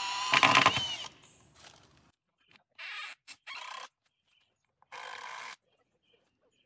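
A cordless drill running at speed with a steady whine ends in a short loud rattle about a second in, fastening a siding board. Faint short scraping noises follow around three and five seconds in.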